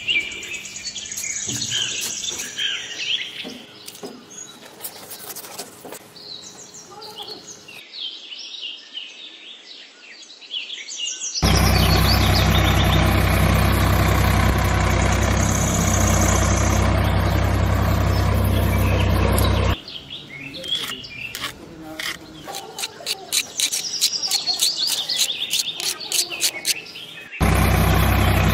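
Birds chirping, broken by a loud, steady engine-like running sound with a low hum that starts suddenly about eleven seconds in and stops about eight seconds later, then starts again near the end, as the miniature toy tractor drives.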